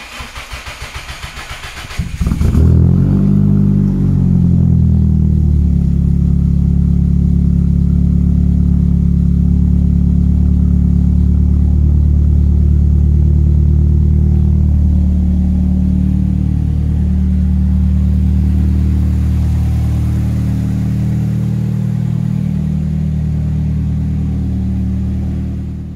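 Nissan SR20DET turbo four-cylinder in a Datsun 280Z being cold-started: the starter cranks in quick pulses for about two seconds, the engine catches, its revs flare and then settle within a few seconds into a steady idle that runs on through the rest.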